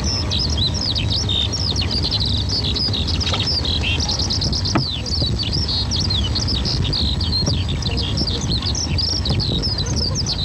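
Many small birds chirping and twittering at once, a dense run of short overlapping calls with no break, over a steady low rumble.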